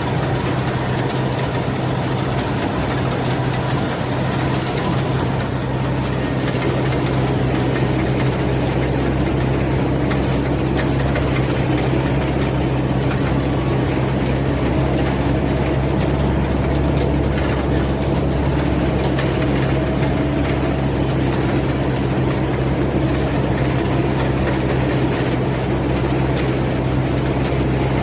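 Rice combine harvester's engine running steadily under load with a deep, even hum, growing slightly louder a few seconds in.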